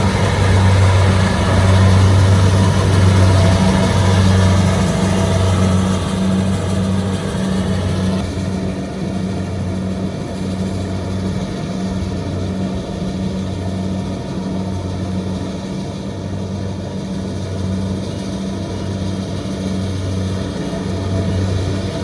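Kubota combine harvester running steadily in a rice field, its engine giving a low hum that pulses evenly. The sound is harsher over roughly the first third, then eases to a softer, steadier run.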